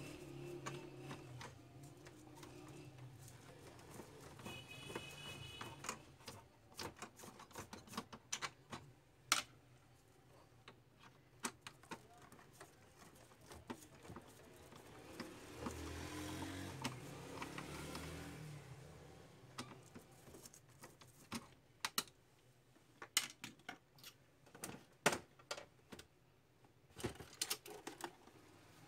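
Faint, irregular clicks and light knocks of plastic parts being handled and worked on in a laser printer, with a short high beep about five seconds in and a low rumble in the middle.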